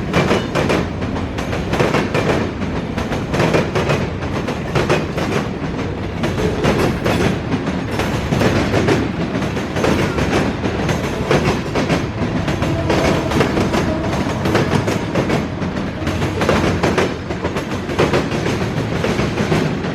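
Freight train cars rolling past, steel wheels clacking over rail joints over a continuous rumble and rattle.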